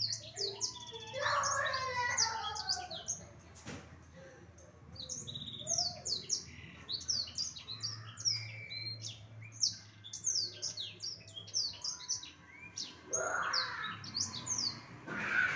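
Blackthroat (black-throated canary) singing continuously: a dense run of quick, high, falling chirps and trills. There is a single sharp click about four seconds in.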